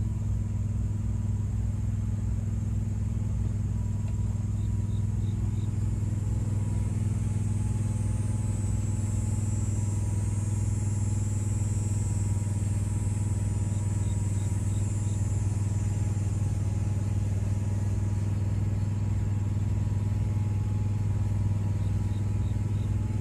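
Steady low machine hum that does not change, with a faint high hiss that swells and fades in the middle.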